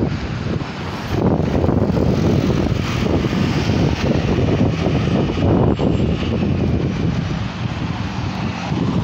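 Road traffic passing on a city street: cars and a motor scooter driving by.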